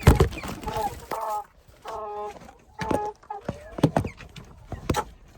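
Young broiler chickens clucking in short calls, with a loud knock right at the start and a few sharp clicks or knocks near the end.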